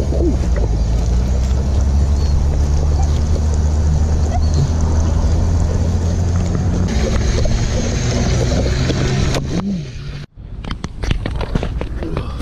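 A loud, steady low hum with a few fixed low pitches, which cuts off suddenly about ten seconds in. Scattered clicks and rustling follow.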